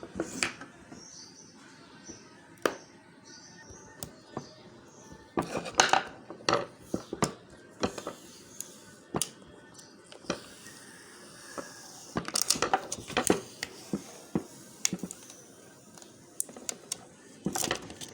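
Small clicks, taps and knocks of a screwdriver and hands working on a Seagate hard drive's metal casing, irregular, with a denser burst of scratchy clicking and scraping about two-thirds of the way through.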